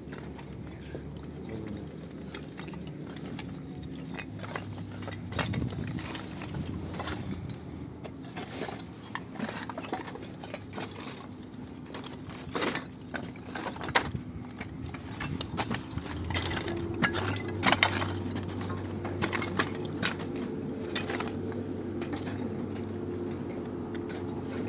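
An engine runs steadily under frequent sharp clicks and clatters. About two-thirds of the way through, its hum rises in pitch and gets louder.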